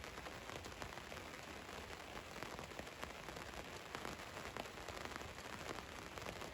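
Rain falling on the roof of a van: a steady patter of many small drop impacts over a soft hiss.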